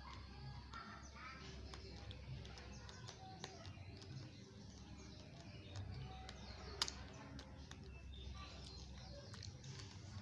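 Raw, uncooked rice grains being chewed and crunched: a scatter of small, sharp, irregular clicks, with one louder crack about seven seconds in.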